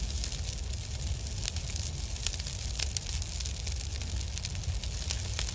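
Fire sound effect: a steady low rumble of flames with irregular sharp crackles.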